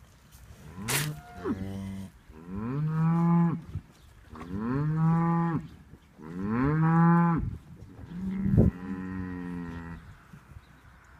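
Newborn calf sneezing once about a second in, then mooing four times in drawn-out calls that rise at the start and drop off at the end. The uploader puts the sneezing down to something up its nose.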